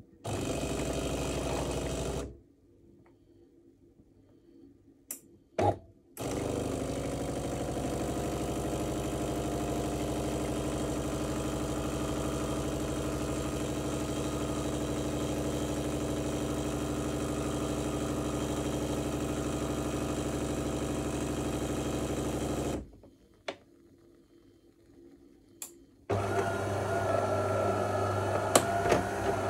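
Bean-to-cup espresso machine making a shot: a motor, likely the grinder, runs for about two seconds, and after a pause with a couple of clicks the pump runs steadily for about sixteen seconds as espresso pours from the spouts. Near the end, after another pause, a different, higher-pitched hum starts.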